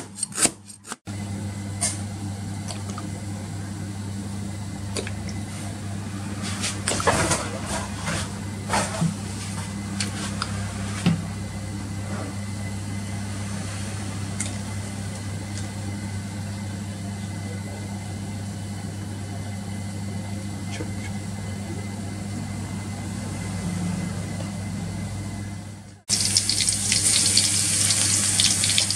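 A cleaver chopping on a cutting board for about the first second, then a steady low hum with a few scattered clicks and knocks. About 26 seconds in it cuts to food sizzling loudly in hot oil in a wok.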